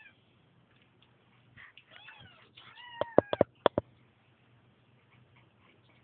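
Bombay kittens meowing a few short times, each call falling in pitch. About three seconds in comes a quick run of four or five sharp clicks, the loudest sounds.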